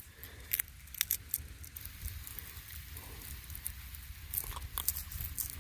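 Sparse crackles and snaps of dry soybean stubble and pods, over a low steady rumble.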